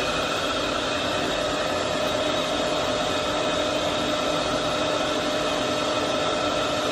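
Factory machinery running continuously: a steady mechanical noise with several constant humming tones over it.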